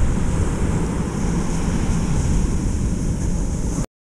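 Wind buffeting the action camera's microphone in a loud, uneven rumble, with the hiss of breaking surf behind it; it cuts off abruptly near the end.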